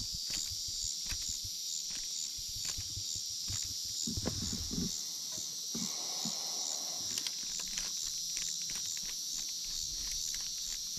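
A steady, high-pitched insect chorus pulsing at about three beats a second, with scattered small clicks and a brief low knocking about four seconds in.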